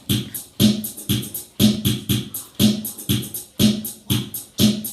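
Instrumental intro of a song's backing track: a steady drum-machine beat with about two strong hits a second.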